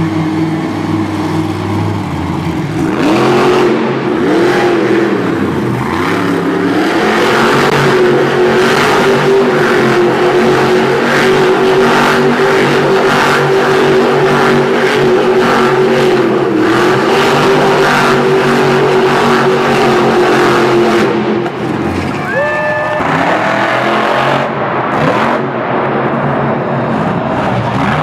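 Monster truck engine revving hard, its pitch swinging up and down. It drops off briefly about three quarters of the way through, then revs up again.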